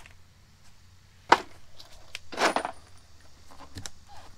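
Front wheel and tyre being pulled off the hub: a sharp metallic clink about a second in and another near the end as the rim knocks on the wheel studs, with a brief scraping noise between them.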